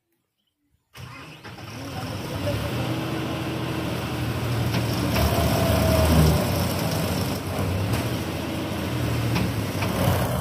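Dasmesh 912 4x4 combine harvester's diesel engine working hard as the machine struggles, bogged in deep mud. It cuts in suddenly about a second in and grows louder toward the middle.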